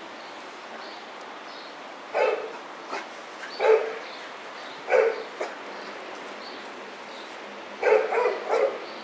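Small puppy barking: single barks about two, three and a half and five seconds in, then a quick run of three near the end.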